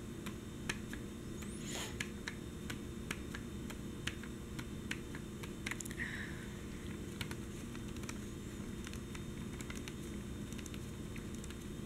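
Fingertips tapping on a newspaper page: light, irregular taps, a few a second, with a brief scrape of paper about two seconds in.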